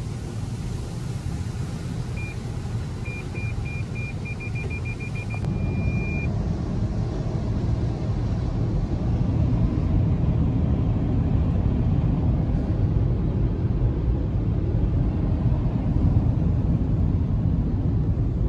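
Automatic car wash running over the car, heard from inside the cabin: a steady, dense rumble of water spray and brushes on the bodywork, growing louder about halfway through. Early on, an electronic beeper sounds, its beeps coming faster and faster until they merge into one held tone, then stopping.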